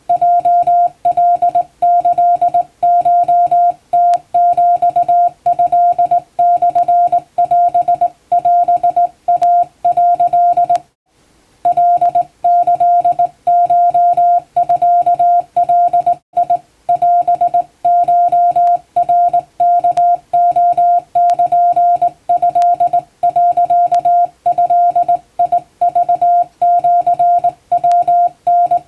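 Hand-keyed Japanese (wabun) Morse code: a single steady tone switched on and off in dots and dashes, with a brief pause about a third of the way through.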